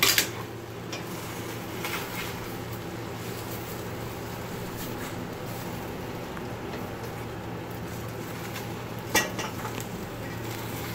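Kitchen utensils knocking and scraping against a large stainless steel pan as pieces of pancake are shifted about, with a sharp clank at the very start, a lighter one about two seconds in and another clank about nine seconds in, over a steady low hum.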